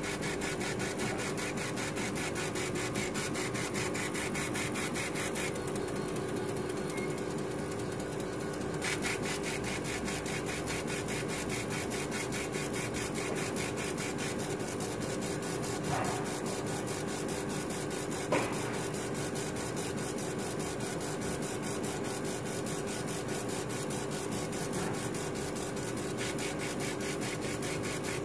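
CO2 laser engraving machine raster-engraving a rubber stamp sheet: the laser head shuttles rapidly back and forth on its gantry in a fast, even rhythm over a steady machine hum. Two brief knocks come in the second half.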